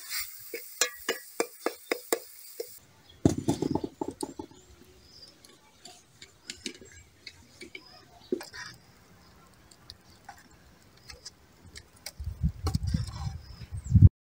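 Cooking in metal pots over a wood fire. A spoon knocks against a metal pot about four times a second while stirring, over a hiss. Then come scattered clinks and scrapes, with two spells of low rumble, the louder one near the end.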